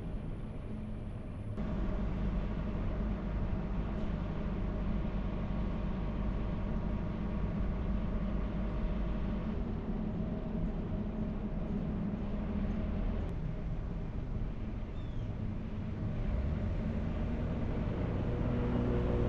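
A car driving along: steady engine and road noise, growing fuller about a second and a half in.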